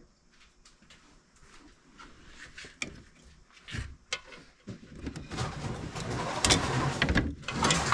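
Small wooden and wicker pieces and wire stands knocking, clattering and scraping together as hands rummage through a cardboard box. It starts as a few faint knocks and becomes loud, busy rattling and rustling from about five seconds in.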